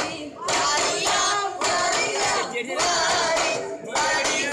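Arabana muttu: a group of boys singing in chorus in sung phrases while beating arabanas, large single-headed frame drums, in a steady rhythm.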